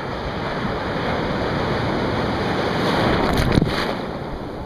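Ocean surf breaking and foaming close to the microphone, a continuous rush that builds to its loudest about three seconds in, with a few sharp splashes at that peak.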